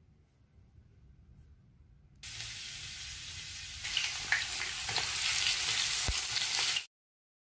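Chopped garlic and ginger sizzling in hot oil in a frying pan. The sizzle starts suddenly a couple of seconds in and grows louder, with a few clicks from the spatula stirring, then cuts off suddenly near the end.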